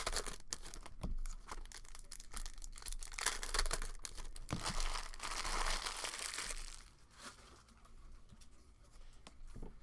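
Plastic wrapping on a box or packs of hockey cards being torn open and crinkled, a dense crackling for about seven seconds that then drops to faint rustles and taps.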